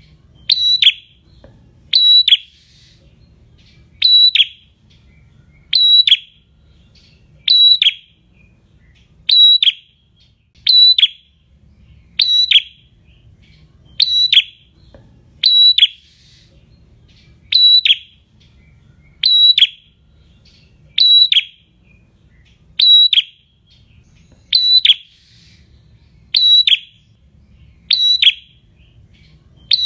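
Caged prenjak singing: one loud, sharp call repeated about every second and three-quarters, each note dropping steeply in pitch.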